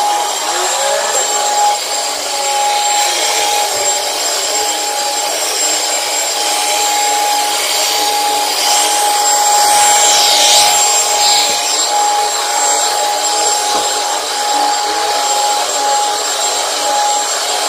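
Commercial HEPA vacuum cleaner running steadily on carpet, a constant rush of suction with a steady motor whine.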